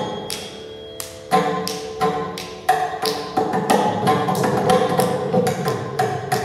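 Mridangam playing a run of sharp strokes in Adi tala over a steady drone from an electronic tanpura.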